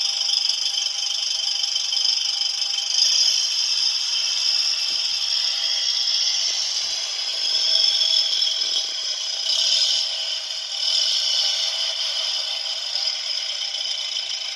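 Citroën Type H engine sound effect from a sound module, with a motor turning: a steady whirring rattle with no low end, swelling slightly a few times.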